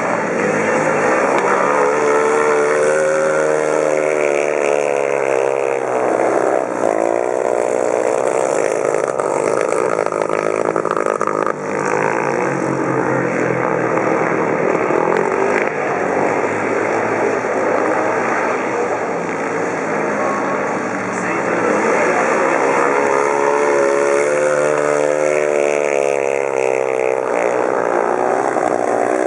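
Speedway motorcycles' 500 cc single-cylinder methanol engines racing around a dirt oval, the pitch rising and falling as the bikes accelerate out of the bends and pass by. They are loudest a couple of seconds in and again over the last several seconds.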